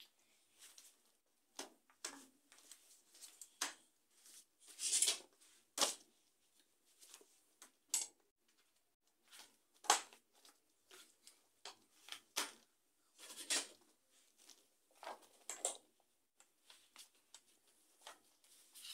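Plastic panels and corner connectors of a DIY cube-storage wardrobe being handled and fitted together: irregular rustles, scrapes and sharp clicks, the loudest a longer rustle about five seconds in and a sharp click about ten seconds in.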